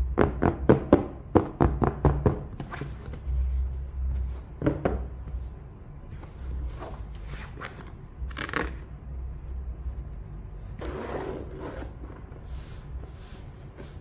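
Hands handling a fabric-covered hard-shell keyboard carrying case: a quick run of taps and knocks in the first couple of seconds, then scattered rubs and scrapes, with one longer scrape about eleven seconds in.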